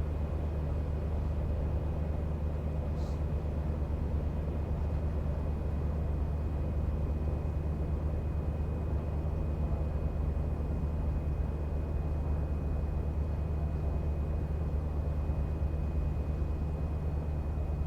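A steady low engine drone that holds unchanged throughout, with a faint high whine running under it and a brief faint high chirp about three seconds in.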